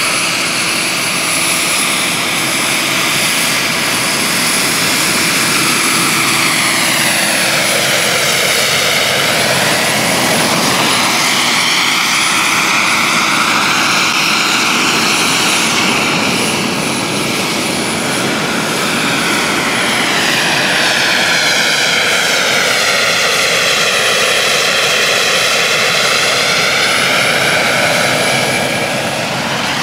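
Radio-controlled scale-model Kamov Ka-52 helicopter flying, its coaxial rotors and motor making a steady loud whirring whine. The tone slowly sweeps down and back up twice as the model passes.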